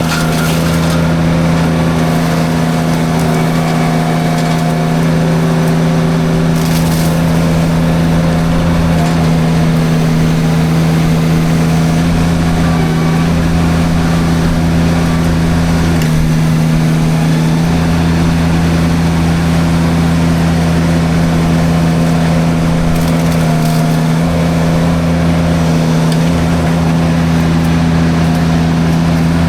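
Mini skid steer engine running steadily at a constant pitch while its forestry drum mulcher shreds brush, with occasional cracks of splintering wood.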